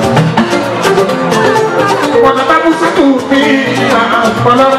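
Loud music with dense, fast drumming and a melody line over it.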